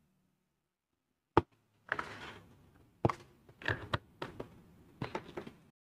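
Scattered clicks and taps of typing a web address and clicking into a browser: one sharp click, then small groups of taps about every half second.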